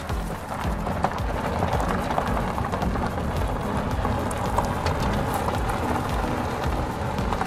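Damp sand spilling off the end of a toy conveyor belt and pattering into a plastic dump-truck bed, a steady rain-like patter with scattered small clicks over a low rumble.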